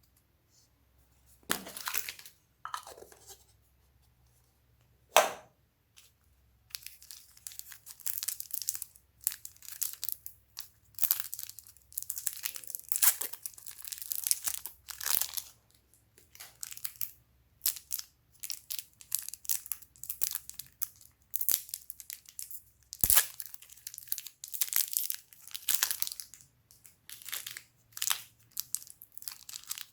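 Slime being squished, stretched and pulled apart by hand, giving sticky crackling and popping in quick bursts. A few separate pops come in the first few seconds, then the crackling runs almost without a break.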